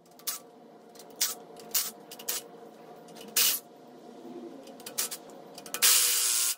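A series of short, irregular bursts of hissing as a tool loosens the intake manifold bolts on a Ford 302 V8, with a longer burst near the end.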